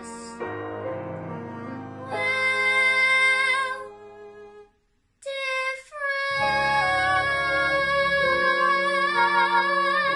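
Young singer holding long notes with vibrato over a musical backing track, with a brief break in the sound about five seconds in.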